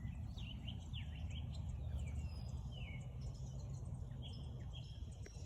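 Songbirds chirping and calling, with several short sweeping calls, over a steady low rumble.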